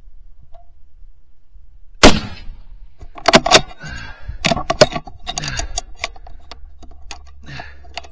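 A single scoped bolt-action rifle shot about two seconds in, followed by a run of sharp metallic clicks and clatter as the bolt is worked to eject the case and chamber the next round.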